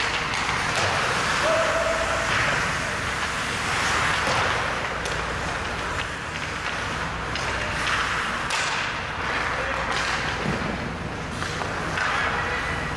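Ice hockey play: skate blades scraping and hissing on the ice, with a few sharp clacks of sticks and puck at intervals.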